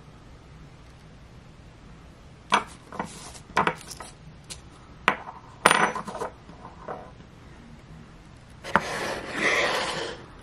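Metal challenge coin being handled and turned over on a tabletop: a string of sharp clicks and taps starting about two and a half seconds in, then a short rustle near the end.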